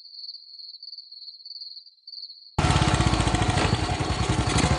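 Crickets trilling steadily. About halfway through, a motorcycle engine comes in suddenly and loudly, running with a fast, even beat.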